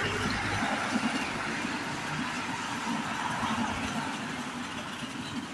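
Street traffic with a minibus driving past close by at the start, mixed with the steady rattle of a small wheeled trolley's plastic wheels rolling over brick paving.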